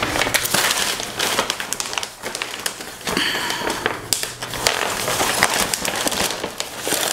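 A stiff sheet of Opti-Rite self-adhesive dry-erase film being unrolled and handled, crinkling and crackling with many small, irregular sharp clicks.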